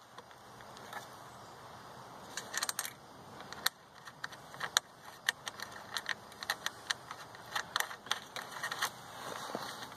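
Irregular light metal clicks and clinks of steel bolt-and-nut hardware being handled and fitted as a mill rail bracket is bolted to a wooden rail.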